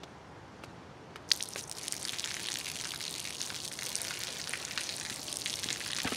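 Stream of water falling from a small wall pipe and spattering onto wet pavement and into a plant pot, a dense run of drips and splashes. A sharp splash about a second in, the loudest moment, starts the spattering.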